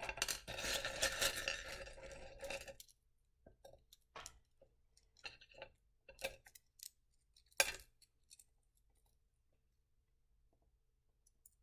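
Rough black opal rubs clattering together in a dish as a hand stirs through them for about three seconds, then scattered stone-on-stone clicks and clinks as pieces are picked up, with one sharp clink about two thirds through.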